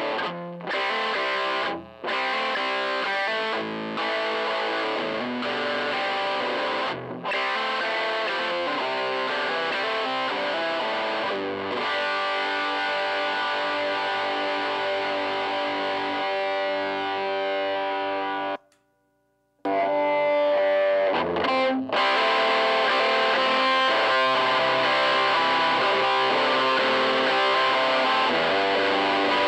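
Electric guitar played through Joyo crunch distortion pedals into a tweed Deluxe-style (5e3) valve amp, giving a crunchy overdriven chord-and-riff passage. The playing stops for about a second past the middle, while the switcher changes from one pedal's loop to the other's. It then resumes with steadier, slightly louder chords.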